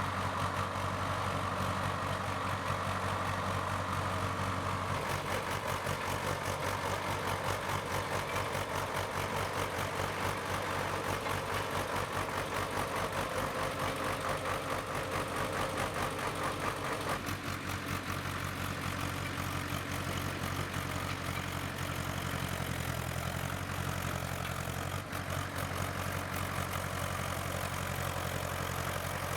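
Bulldozer's diesel engine running steadily with a dense, even clatter, its note shifting a couple of times.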